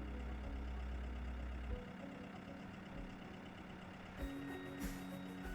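Tractor engine idling steadily, its low drone changing pitch about two seconds in, with a few sharp knocks near the end.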